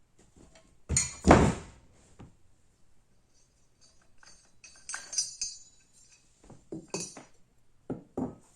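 Metal clanks and knocks from handling the generator and its parts: a heavy thump about a second in, a cluster of ringing clinks around five seconds, then a few lighter knocks near the end.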